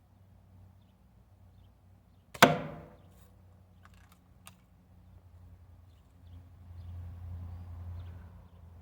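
A single shot from a Daisy Red Ryder BB gun, a lever-action spring air rifle: one sharp crack with a brief ringing tail, about two and a half seconds in. A few faint clicks follow about a second and a half later, and a low rumble swells near the end.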